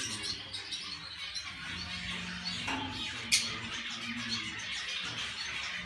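Many small caged birds chirping and squawking without a break, with one sharp click about three seconds in.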